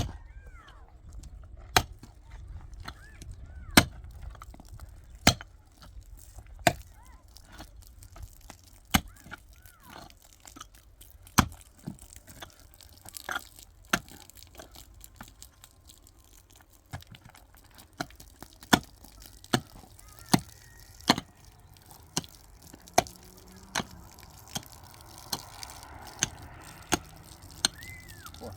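Repeated sharp strikes of hand-tool work on a building job, coming irregularly about once a second and more closely together near the end.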